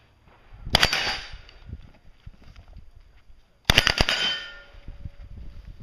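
Two short full-auto bursts from a full-size Uzi submachine gun, about three seconds apart, each a quick run of shots. The second burst is followed by a metallic ringing.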